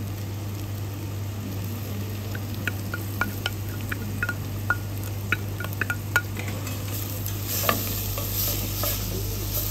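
Wooden spoon scraping grated carrot out of a small metal bowl into a stainless steel pot, with a run of light clinks in the middle. Then the carrot sizzles in the hot pot as it is stirred in, the sizzle growing near the end, over a steady low hum.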